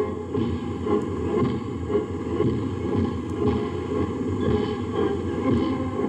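Military band playing a march on a muffled old recording, with a steady beat about twice a second.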